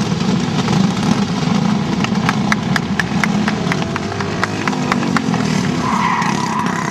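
Go-kart engine running steadily as a kart passes. From about two seconds in, hands clap quickly, roughly five claps a second, for about three seconds.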